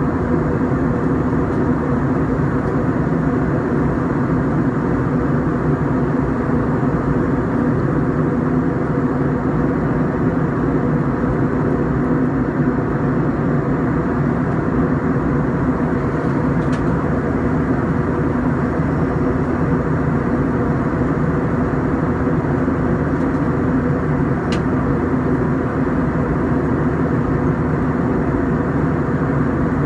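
Steady drone of an Airbus A321's jet engines and rushing air, heard inside the passenger cabin, with a steady low hum under it.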